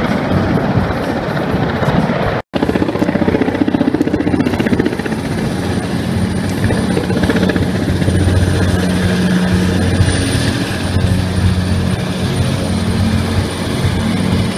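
Sikorsky S-58 helicopter hovering and moving low overhead: the steady throb of its rotor and engine. The sound drops out abruptly for a moment about two and a half seconds in.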